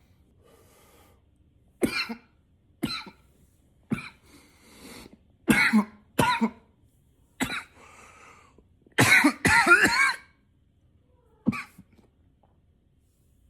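A man coughing again and again: single coughs about a second apart, with breaths drawn in between. About nine seconds in comes a loud fit of several coughs in quick succession.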